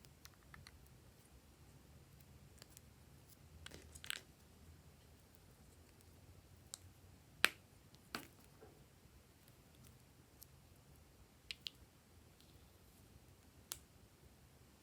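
Glossy slime being handled, giving sparse, faint sticky clicks and pops, a few of them in quick pairs.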